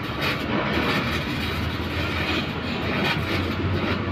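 Electric arc welding: the arc crackling and hissing steadily as a weld is laid, with a steady low hum underneath.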